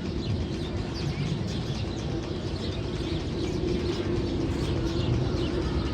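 Bird chirps and calls from a sound-effect track played over loudspeakers in a roller coaster tunnel, over a steady low hum that grows a little louder about halfway through.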